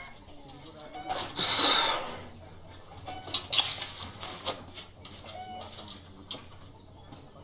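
Faint chicken clucking in quiet surroundings, with a brief rustle about a second and a half in.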